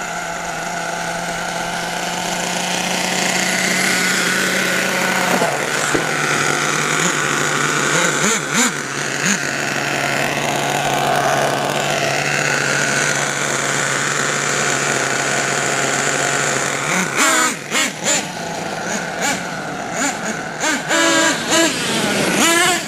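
Twin two-stroke nitro glow engines of a HotBodies Lightning GTX2 RC truck running steadily. The engine note drops a little about five seconds in. From about seventeen seconds it breaks up into quick revs, with rises and falls in pitch and sharp clicks.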